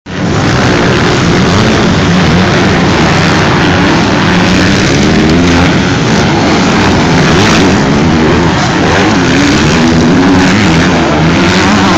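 Several motocross bikes at full throttle on the track, engines revving loudly, their pitch rising and falling as the riders jump and land and the pack passes close by.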